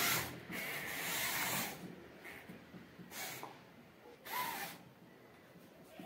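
Small electric gear motors of a homemade remote-control excavator running in several short bursts as it is driven from its wired remote, the longest about a second near the start and one with a brief rising whine.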